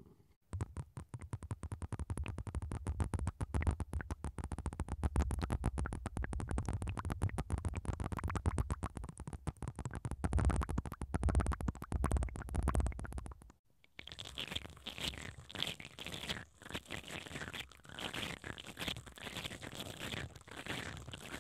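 Liquid from syringes worked right at the tops of binaural microphones makes a dense, rapid wet clicking with a deep low rumble for about thirteen seconds. After a brief pause, spiral bristle brushes twisting inside hollow wooden balls over the microphones make a scratchy rustling.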